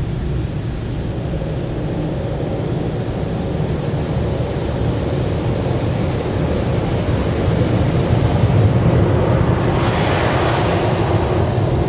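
High-pressure water jets from a Karcher Opti Wash 8000's contouring top high-pressure arm spraying onto the car, heard from inside the cabin as a steady rushing hiss over a low rumble. It grows gradually louder, and about ten seconds in it turns much hissier as the spray reaches the windshield.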